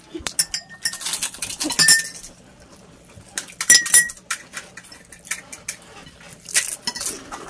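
Spoons clinking and scraping against glass sauce bowls and china plates, a scatter of sharp clicks with a few clinks ringing briefly, along with the crisp shells of fuchka (pani puri) cracking as they are broken open and filled.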